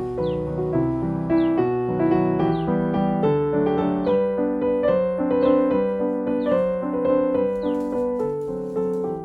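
Background music, a piano-like keyboard playing a run of notes, with a short high chirping glide about once a second.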